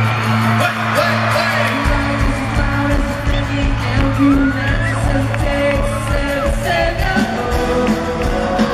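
Live pop band playing with lead vocals: acoustic guitar, bass and singing, with the drum beat coming in about two seconds in. Fans whoop and scream over the music.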